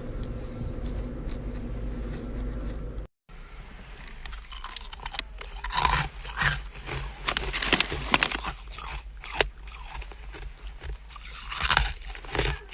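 A steady low hum, then after a brief break, irregular sharp crunches of frost ice from a chest freezer being bitten and chewed.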